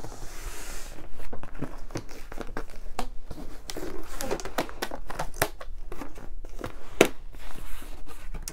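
A packed gift box being opened and unpacked by hand: wrapping crinkling and tearing, with a string of sharp clicks and knocks from handling, the loudest about five and seven seconds in.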